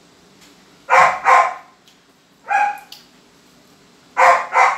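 Dog barking: two quick barks about a second in, a single bark a moment later, and two more quick barks near the end.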